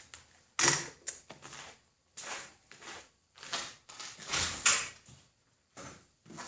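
Shotgun action being cycled and shotshells loaded by hand into the ejection port during dry-fire practice: an irregular series of sharp metallic clacks and rattles.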